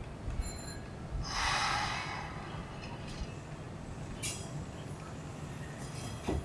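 Hanshin electric train letting out compressed air: a hiss about a second in that lasts under a second, then a shorter, thinner hiss a few seconds later, over a low steady rumble.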